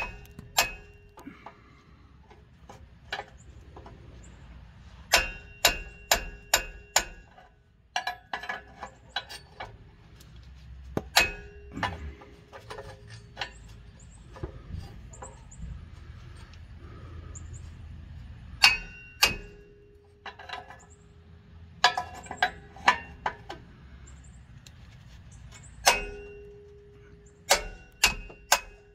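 Sharp metal-on-metal strikes on a wrench fitted to a rusted, seized oxygen sensor in the exhaust pipe, each strike ringing briefly. They come in irregular bursts of several blows at a time.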